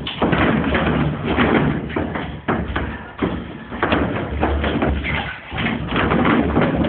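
Repeated thuds and knocks of a sparring session: strikes landing and feet moving on the gym floor, over a busy background of gym noise.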